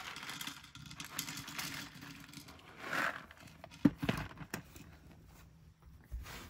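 Crinkling and rustling of a cat-food packet as breakfast is tipped into the cat's bowl, with a few sharp clicks about four seconds in.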